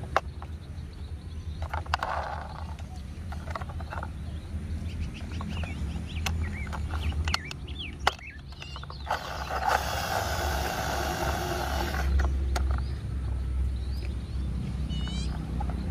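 Hard plastic clicks and snaps as wheels are pressed onto a plastic toy car, over a low steady rumble. Birds chirp briefly now and then, and a hiss runs for about three seconds in the middle.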